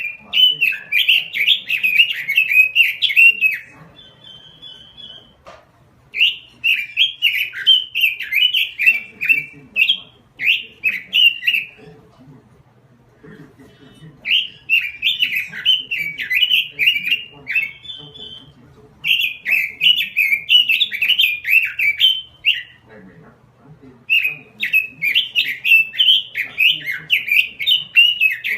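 Pekin robin (red-billed leiothrix) singing in full song: fast, warbling phrases of three to four seconds, five of them with short pauses between.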